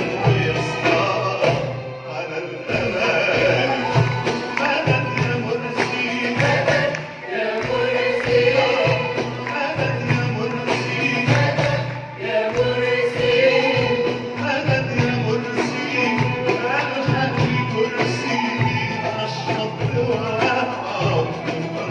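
Live Arabic ensemble music: oud and strings play as a male singer sings over a regular low beat, heard through the concert hall's sound system.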